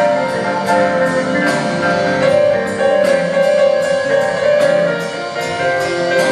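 Live rock band playing an instrumental jam: electric guitars, keyboards and drum kit, with cymbal strokes about two or three times a second and a long note held through the middle.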